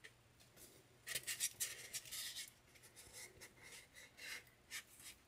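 Faint rustling and crinkling of a thin paper napkin as fingers press and smooth it onto a glued foam cake dummy, in short scratchy bursts from about a second in.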